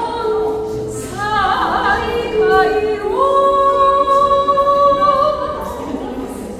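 Music: a singing voice holding long notes over the ringing strings of a lyre.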